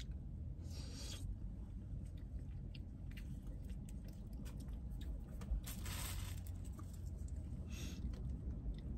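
Plastic utensils scraping and clicking against styrofoam food containers, with a few short airy hisses, about a second in, near six seconds and near eight seconds, over a low steady hum.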